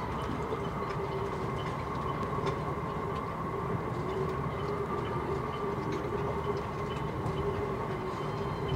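Wind blowing through a marina full of moored sailboats: a steady rushing with a steady hum and a higher whine from the rigging, and faint clinks of halyards against masts. A single knock comes at the very end.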